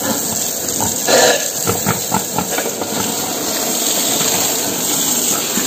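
Steady hiss of water spraying over a pen of pigs, with a few short noises mixed in around a second in.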